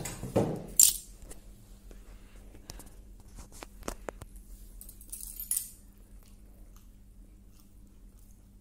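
Eating sounds at a table: scattered light clicks and taps, the sharpest about a second in, with a brief hiss about five seconds in, over a low steady hum.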